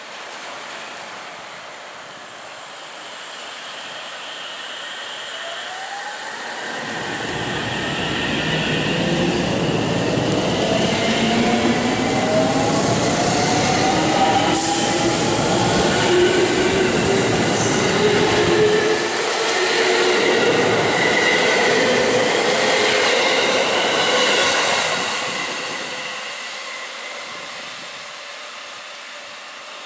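A ten-car JR Central 313 series electric train pulling out. Its motors give a whine of several rising tones as it speeds up. The running noise builds to its loudest as the cars go past, then fades as the train draws away.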